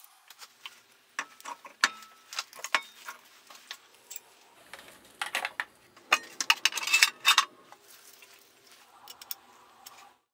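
Tools and metal parts being handled: a string of irregular metallic clicks and clinks, busiest a little past the middle.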